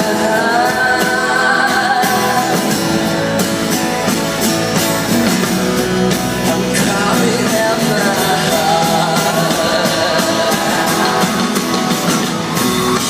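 Live rock band playing a song, a singer's voice over electric guitar and drums with steady drum hits.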